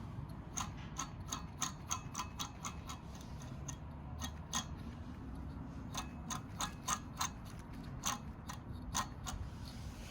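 A series of sharp clicks at an uneven pace, about two or three a second with short pauses between runs, over a low steady rumble.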